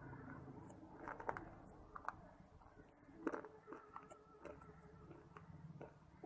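A person biting and chewing crumbly mineral pieces such as shale, with several faint, soft crunches at irregular intervals.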